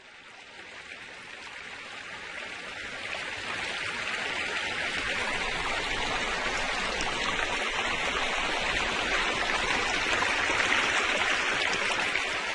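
Steady rushing noise, a hiss strongest in the upper-middle range, fading in over the first few seconds and then holding even.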